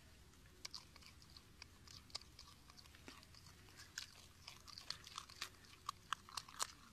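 A marmot biting and chewing a piece of raw carrot: faint, crisp crunching clicks in an uneven run, coming faster from about four seconds in.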